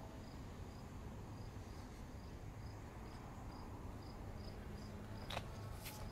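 A cricket chirping steadily, about two short high chirps a second, over a low steady rumble. A couple of sharp crackles come near the end.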